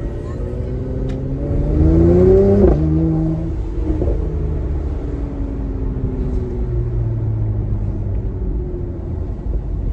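Mercedes-AMG C43's twin-turbo V6 and exhaust heard from inside the cabin, pulling hard with a rising note, then dropping in pitch at an upshift a little under three seconds in. After the shift it runs on with the note slowly falling.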